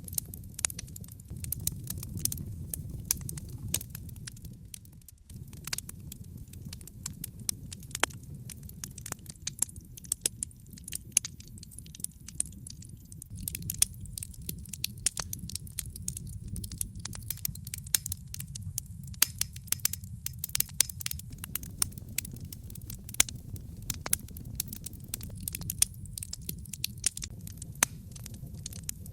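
Wood fire burning in a fireplace: frequent sharp crackles and pops over a steady low rumble of the flames.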